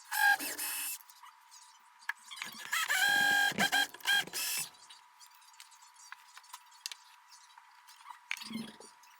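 Cordless drill motor whining in short bursts at a steady pitch: a brief burst at the start, then a longer run of about two seconds in the middle with short stops. A low thump near the end.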